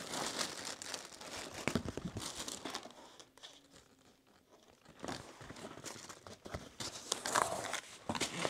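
Packaging crinkling and rustling as Carrera Hybrid track pieces are unpacked and handled, dying down for a couple of seconds in the middle before picking up again.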